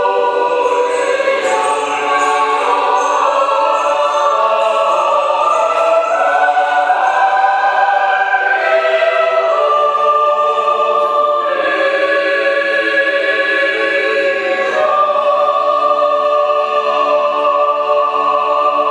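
Church choir singing unaccompanied Russian Orthodox liturgical music in several-part harmony, long held chords that shift every few seconds.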